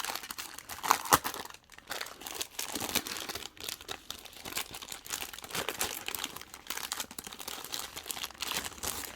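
Plastic packaging crinkling and rustling as it is handled and pulled open to get a pack of scrapbook papers out, in an uneven run of crackles with a few sharper, louder crackles near the start and about a second in.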